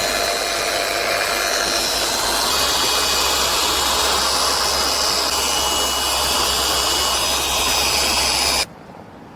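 Electric machine polisher with a soft pad running steadily on an acrylic windshield, a high motor whine over a steady whir, polishing out fine scratches. It cuts off abruptly near the end.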